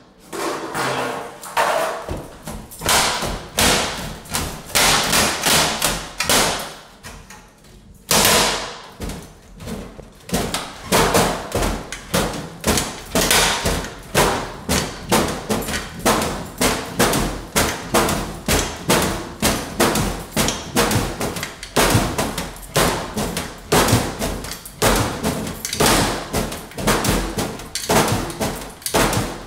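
Stainless-steel sheet metal of a recessed paper towel dispenser being wrenched back and forth by hand, banging and clanking about twice a second with a brief lull a few seconds in, as its spot welds are worked loose.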